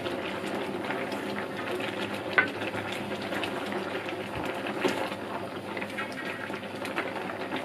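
Pot of coconut-milk sambal simmering with a steady bubbling while a wooden spatula stirs it, scraping and knocking against the side of the metal pot, with a couple of louder knocks.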